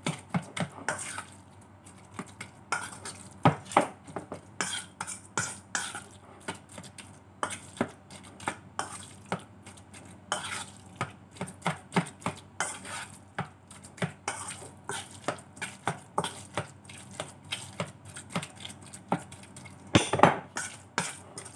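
Metal spoon stirring minced pork and onion mixture in a stainless steel mixing bowl: irregular clinks and scrapes of spoon on steel, several a second, with a louder cluster about twenty seconds in.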